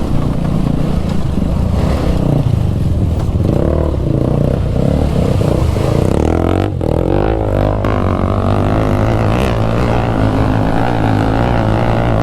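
Motorcycle engine running under load on an off-road trail, its pitch rising and falling with the throttle, with a brief dip about halfway through before it settles into a steadier drone.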